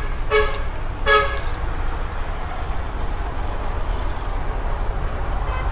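Two short horn toots in the first second and a half, then a steady outdoor background of noise with a low rumble.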